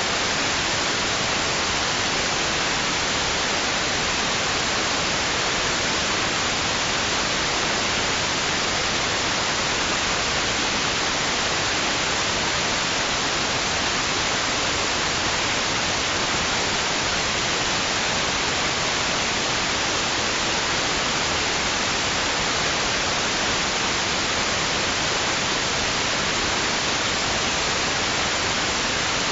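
Steady white noise: an even, unchanging hiss with no swells or pauses, brightest in the upper range.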